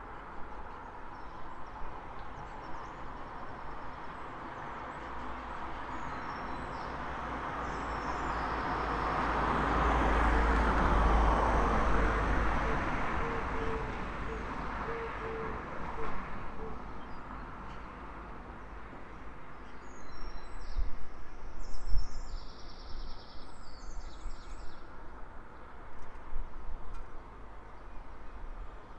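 A road vehicle passing along the street, swelling to its loudest about ten seconds in and fading away. Birds chirp now and then, and there is a short knock near the end.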